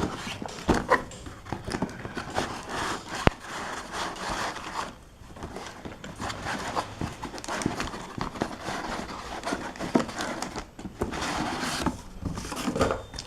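Cardboard box and packaging being opened and handled: irregular rustling and scraping with many small clicks and a few sharper knocks as the contents are taken out.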